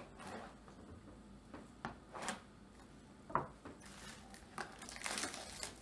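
A knife blade slitting open a cardboard trading-card box: a few short, scratchy scrapes, then a denser run of scraping and rustling over the last couple of seconds.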